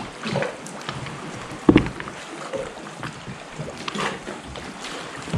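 Kayak paddles dipping and splashing in calm sea water, with one loud knock a little under two seconds in.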